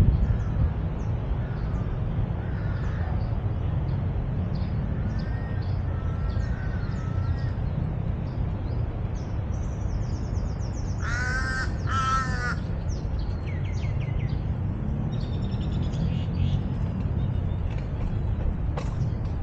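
A crow caws twice in quick succession a little past halfway, over a steady low rumble, with smaller birds chirping here and there.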